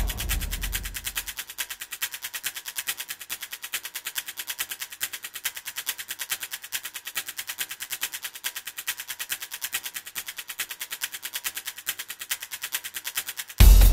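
A steady, rapid rattle of evenly spaced sharp hits, several a second, with a deep boom fading away in the first second. Loud drum-heavy music cuts in near the end.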